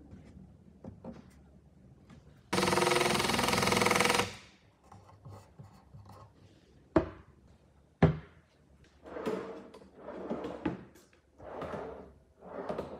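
A power tool runs loudly for about a second and a half near the start. Then come two sharp clicks from the pine cabinet's door, and a drawer on ball-bearing metal slides is rolled out and back several times, each stroke a short rumble that swells and fades.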